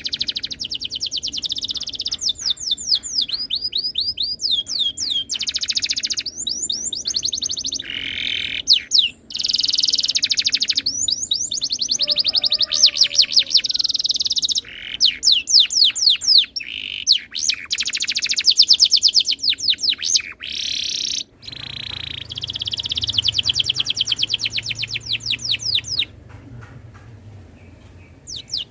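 Domestic canary singing a long song of fast trills and rapidly repeated rolling notes, broken by brief pauses, and falling silent near the end.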